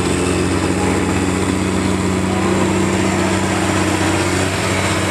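John Deere pulling tractor's engine running steadily at low speed, not under load.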